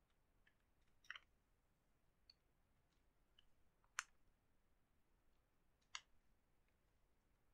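Faint computer keyboard keystrokes: a handful of single key clicks spaced about a second apart, the loudest about four seconds in.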